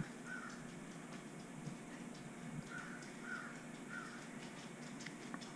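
Faint short animal calls, one near the start and then three in a row about half a second apart around three to four seconds in, over a quiet room hum.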